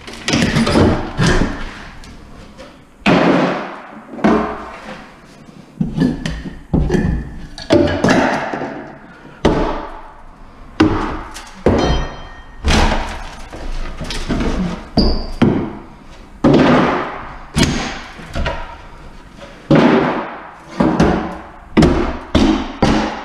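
Wall-mounted kitchen cabinets being broken apart with a crowbar: repeated loud, irregular bangs and cracks of wood and board, about one a second.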